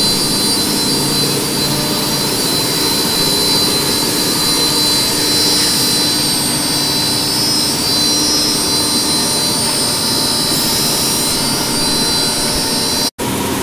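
Steady din of guitar-factory wood shop machinery running, with a constant high whine over it. It cuts out for an instant near the end.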